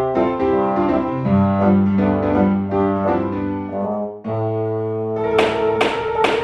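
Instrumental intro music with piano and brass, a held chord after about four seconds, and two sharp knocks near the end.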